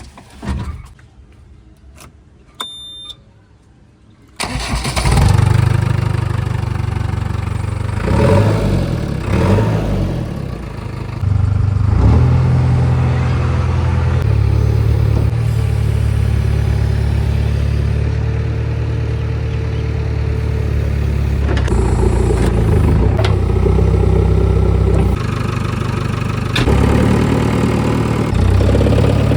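A JCB 3DX backhoe loader's diesel engine comes in suddenly about four seconds in, after a short beep, and then runs steadily, its note shifting in steps as the machine works.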